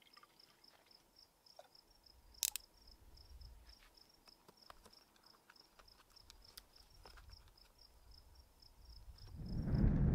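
A cricket chirping faintly and steadily, about four high chirps a second, with a sharp click about two and a half seconds in. Near the end a much louder rustling noise comes in and covers it.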